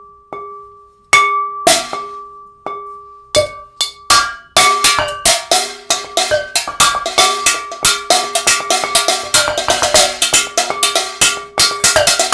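Improvised percussion played on household kitchen objects: a few spaced strikes that ring on at steady pitches, then from about four seconds in a fast, dense rhythm of struck, ringing hits.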